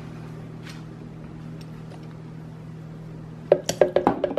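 A metal measuring spoon tapped against the rim of a plastic blender jar in a quick run of about seven short ringing clinks near the end, knocking off the last of the vanilla extract. A faint steady low hum lies underneath.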